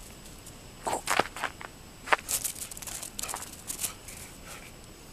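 A mixed-breed dog's feet moving about: quick clusters of claw clicks and scrapes on the floor about a second in and again from about two to four seconds in.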